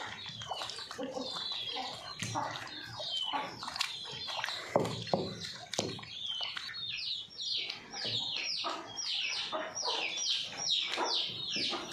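Hand-turned stone grinder working soaked brown rice into a thick batter, the stone scraping and knocking in the mortar. Over it come many short, high, falling peeps from poultry, which come quickly one after another in the second half.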